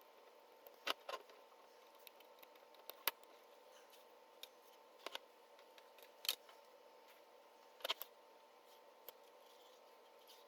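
Scattered sharp clicks and taps, about eight in all, from small plastic fan parts and tiny screws being handled while a blower fan is fitted into a 3D-printed bracket, over a faint steady hum.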